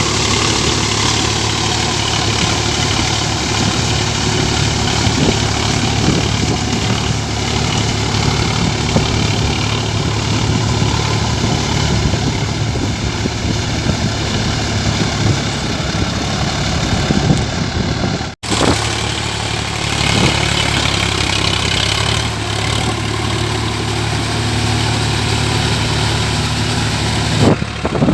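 Sonalika tractor's diesel engine running steadily, with a low, even hum. The sound cuts out for an instant about two-thirds of the way through, then resumes.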